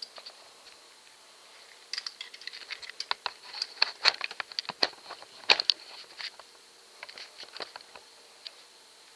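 Irregular small clicks and taps of hand work on a refrigerator door's bottom hinge, as a new plastic hinge cam is pressed into place. The clicks come thickest after about two seconds and thin out near the end.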